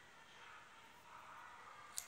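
Near silence with a faint hiss, then at the very end a sharp crunch as an elongated tortoise bites into a lettuce leaf.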